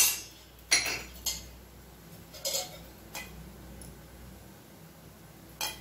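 Metal spoon clinking and scraping on an iron dosa tawa while oil is spread over parottas: about six short clicks and scrapes a second or so apart, with quiet between them.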